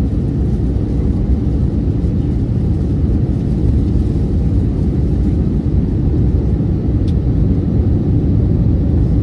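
Steady low rumble of an Airbus A319's engines and airflow, heard inside the cabin as the airliner descends on approach to land.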